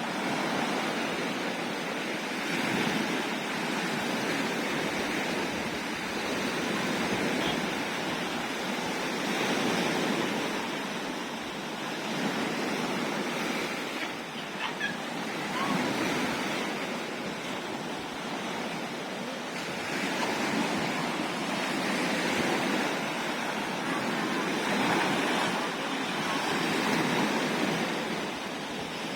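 Sea surf washing onto the shore: a continuous rushing of breaking waves that swells and eases every few seconds.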